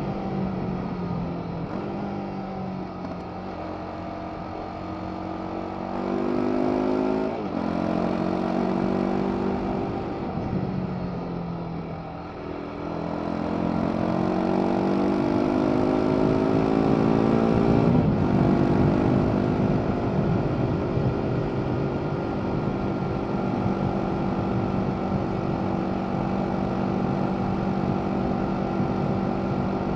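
BMW G 310 R's 313 cc single-cylinder engine through its stock exhaust, heard from the rider's seat. It pulls up through the revs, with a sudden drop in pitch at a gear change about a quarter of the way in. It eases off for a few seconds, then pulls hard again and shifts up just past halfway. After that it holds a steady cruise.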